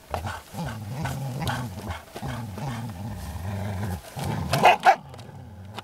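Groenendael Belgian shepherds growling in a steady, low rumble as they play tug-of-war over a frisbee: play growling over a guarded toy. About four and a half seconds in come two louder, sharper outbursts.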